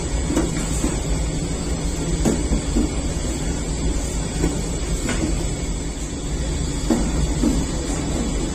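Bakery dough sheeter running: its electric motor and rollers make a steady mechanical rumble, with a few short light knocks.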